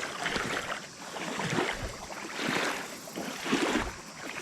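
Footsteps wading through shallow creek water: a rhythmic sloshing swish about once a second.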